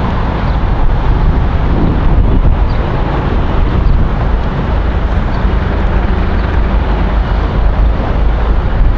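Loud wind noise on the microphone: a continuous rush that swells and dips slightly, heaviest in the low end.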